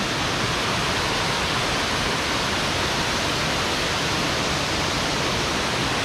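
A waterfall pouring: a loud, steady rush of falling water.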